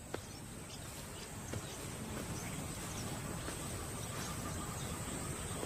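Natural bush ambience: a steady high-pitched insect drone over low rumbling background noise that slowly grows louder, with a couple of faint clicks.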